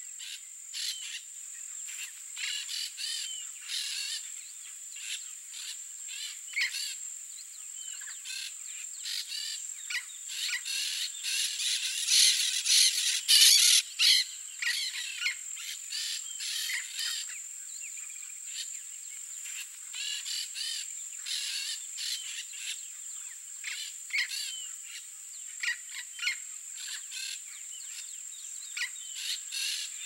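Turquoise-fronted parrots (Amazona aestiva) calling in a run of short, repeated calls that grow loudest about twelve to fourteen seconds in, over a steady high-pitched whine.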